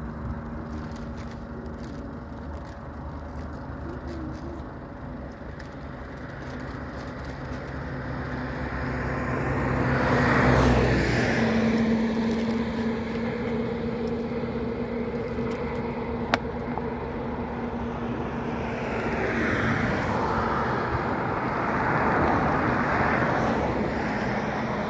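Steady hum of an Airbus A320's jet engines as the airliner rolls slowly along the runway, with passing road traffic swelling up and fading away twice, the louder pass about ten seconds in and another near the end.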